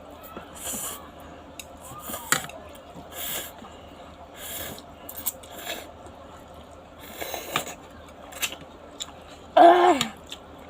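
Noodles being slurped and chewed close to the microphone, in short wet bursts every second or so, with a brief voiced sound from the eater near the end.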